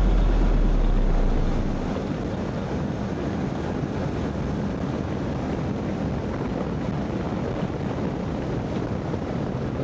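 Steady wind noise buffeting the microphone of a Honda CB500X motorcycle riding at speed, with the bike's running and road noise underneath. A deep low tone fades out in the first second or two.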